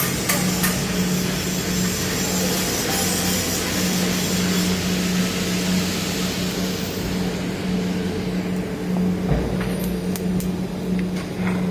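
TIG welding arc hissing over a steady low hum, with the hiss fading out about seven seconds in; a few sharp ticks follow near the end.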